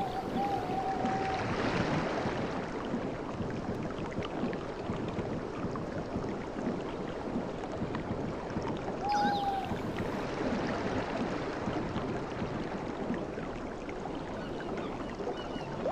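Sea surf washing on a beach, with wind on the microphone. A short high-pitched call sounds near the start and again about nine seconds in.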